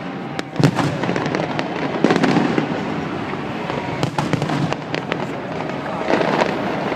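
Fireworks display bursting: a dense, continuous run of bangs and crackles, with heavier booms about every two seconds.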